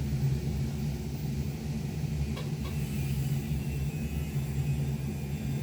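Electric kettle with one liter of water rumbling steadily as it nears the boil, just before its automatic switch cuts off.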